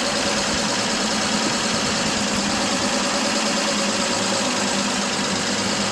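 Old 6-volt Chevrolet engine running steadily with an even hum.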